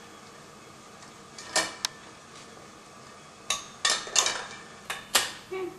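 Steel dhokla trays clinking and scraping against the chrome wire rack of a dhokla stand as they are slid into its tiers. About seven short metallic knocks, two of them a little after the start and the rest in a quick cluster over the last two and a half seconds.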